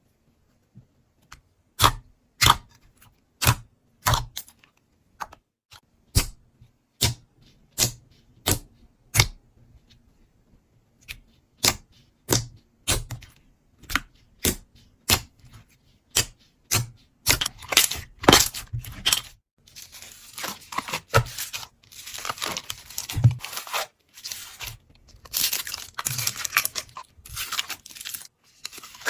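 Slime being pressed and squeezed by hand. First come sharp, separate pops about one to two a second as air pockets burst. From about two-thirds of the way through, these give way to a steady crackling and squishing as the slime is worked more quickly.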